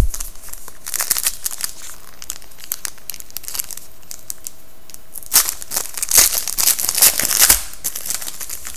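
Foil wrapper of a hockey card pack being crinkled and torn open by hand. The crackling comes in short bursts about a second in and is loudest from about five to seven and a half seconds in.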